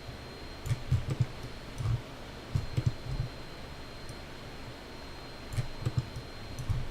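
Computer mouse clicking in short clusters of two to four quick clicks, separated by pauses of a second or more.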